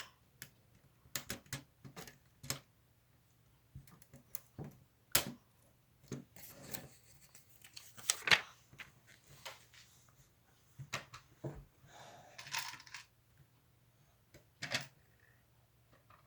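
Plastic Lego Technic parts clicking and rattling as they are handled and pressed together, in scattered, irregular clicks.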